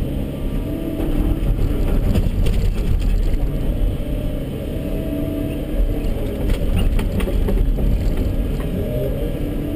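Volvo EC140 excavator's diesel engine running steadily, heard from inside the cab, with a hydraulic whine that comes and goes as the boom moves. A few clicks and knocks sound about two-thirds of the way in.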